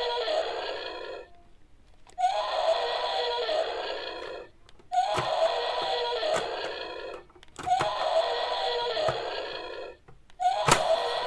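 Electronic toy sound effect played through a small speaker, repeated over and over: each one lasts about two seconds, opens with a short rising tone and cuts off abruptly, with a short gap before the next.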